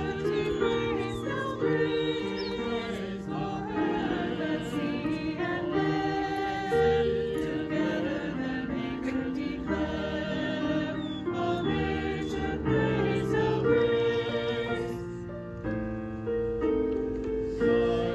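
Small mixed choir of men and women singing a sacred piece together, accompanied by an electric keyboard.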